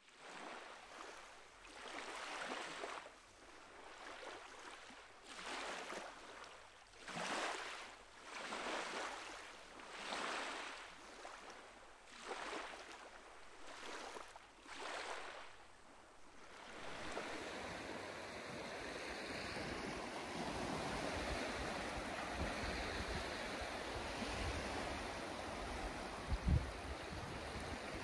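Small Baltic Sea waves washing onto a beach, each swell rising and falling about every one and a half seconds. About halfway through it changes to a steadier rushing wash with a low rumble, and a single thump comes near the end.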